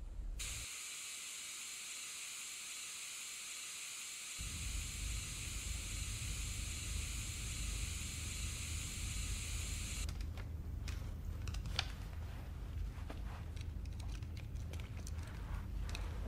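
Steady white-noise hiss of television static, which stops abruptly about ten seconds in. A low rumble comes in about four seconds in and carries on, with scattered faint clicks and rustles after the hiss stops.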